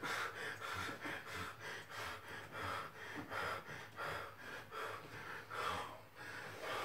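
A person breathing heavily, quick rhythmic gasping breaths about two a second.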